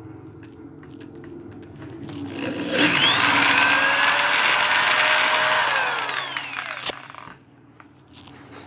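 Corded electric drill with an eighth-inch bit boring a screw hole in a plastic guitar pickguard. The motor spins up about two and a half seconds in, runs steadily for about three seconds, then winds down in falling pitch as the trigger is let go.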